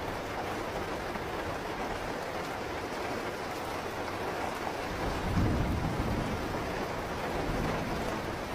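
Steady rain falling, with a low rumble of thunder rolling in a little past halfway and fading away after a few seconds.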